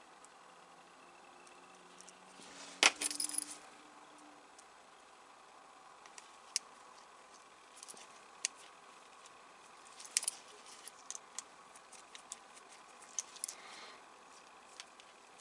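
Small clicks and taps of a precision screwdriver and tiny screws on plastic model parts being handled, with a short burst of metallic clinks about three seconds in and scattered light ticks after.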